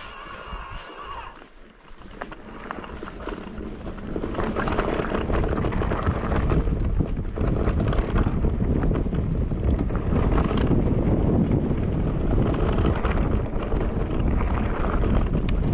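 Wind rushing over an action-camera microphone on a moving e-mountain bike, with short knocks and rattles from the bike on the rough trail. The rush builds over the first few seconds and then stays loud and steady. A faint high whine stops about a second in.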